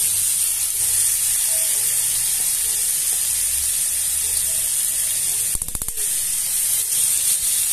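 Beef rib pieces sizzling steadily as they sear in hot lard in a cast-iron pan.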